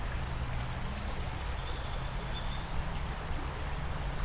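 Steady rush of a swollen, fast-flowing river, with a low rumble underneath.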